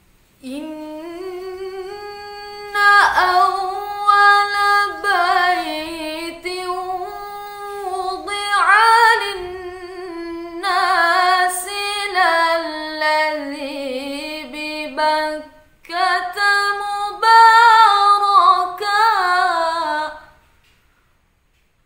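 A woman reciting the Qur'an in melodic tilawah style, drawing out long ornamented notes that waver and slowly sink in pitch. There is a brief break about 16 seconds in, and the phrase ends about 20 seconds in.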